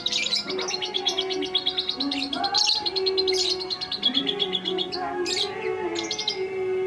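Lovebird singing a long, rapid chattering trill, with sharper chirps breaking in now and again.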